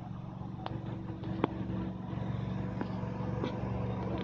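An engine running steadily with a low, even hum, and a few short sharp clicks over it.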